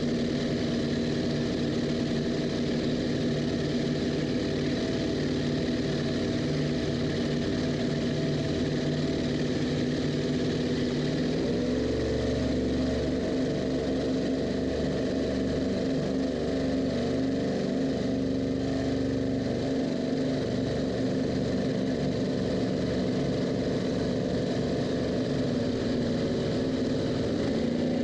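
Engine of a small open boat running steadily while under way. Its note changes about twelve seconds in.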